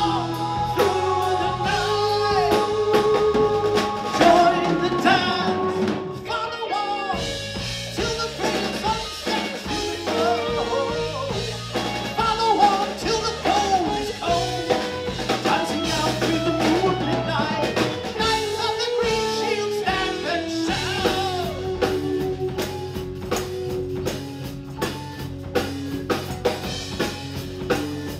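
Live rock band playing an instrumental passage on drum kit, electric guitars and keyboards, with fast winding lead lines through the middle.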